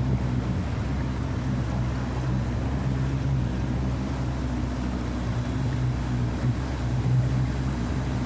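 A small boat's motor running steadily at low speed through floodwater, with a constant low hum.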